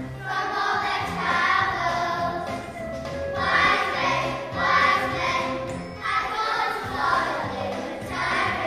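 A choir of eight- to nine-year-old children singing together.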